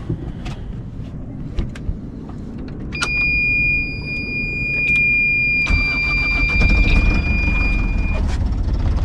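Sailboat's inboard diesel engine being started: the panel's alarm buzzer sounds a steady high tone when the ignition comes on, the engine cranks and catches a few seconds later and keeps running, and the buzzer cuts off a couple of seconds after the engine starts, as the oil-pressure alarm clears.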